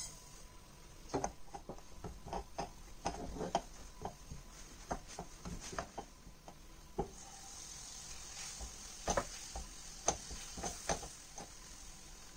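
Spatula stirring dry desiccated coconut in a nonstick frying pan, with irregular scrapes and knocks against the pan. A faint hiss comes in about halfway through as the coconut toasts.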